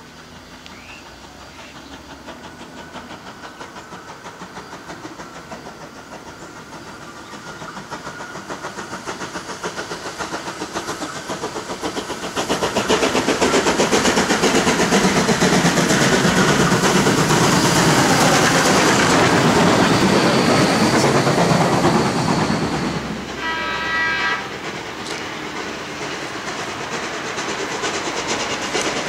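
NSWGR C35-class 4-6-0 steam locomotive 3526 and its train approaching and running through, the sound building over about twelve seconds to a loud, rapidly pulsing rumble of exhaust and wheels that holds for about ten seconds, then falls away. Near the end a steam whistle blows once for about a second, and the train's sound begins building again as it approaches anew.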